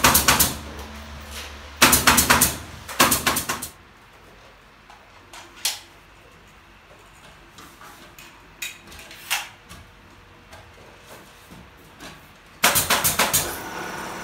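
Pneumatic nail gun fired in quick bursts of sharp bangs, several nails a second, as ceiling battens are nailed up, with a few lone knocks between bursts.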